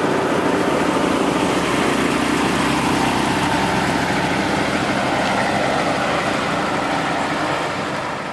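Engine of a 1950s BMW 'Baroque Angel' saloon running steadily at low speed as the car pulls slowly away, fading out near the end.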